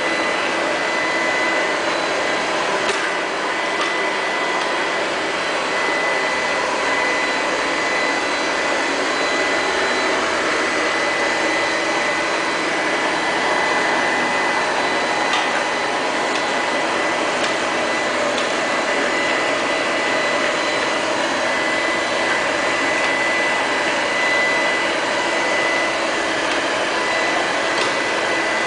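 Liectroux Q5 robot vacuum cleaner running: a steady suction-fan hum with a constant high whine, and a few faint clicks.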